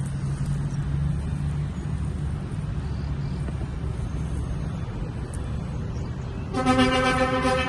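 Low steady rumble of a vehicle. Near the end a loud horn blast of several tones at once starts and holds.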